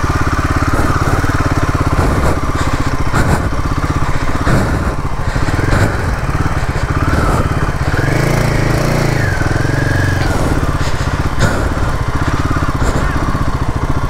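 Royal Enfield Himalayan 450's single-cylinder engine running under throttle as the motorcycle is ridden, with the revs rising and falling about two-thirds of the way through.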